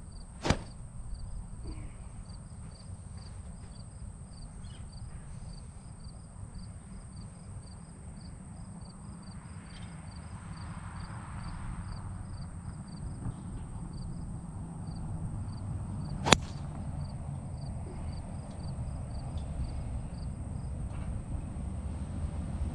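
Crickets chirping steadily in a regular rhythm, with wind rumbling on the microphone. About sixteen seconds in, a golf club strikes the ball with a single sharp crack, the loudest sound. A fainter click comes about half a second in.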